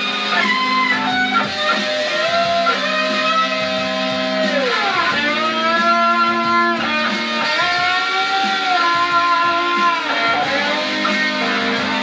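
Instrumental music led by an electric guitar, its held notes bending and sliding in pitch over steady lower notes.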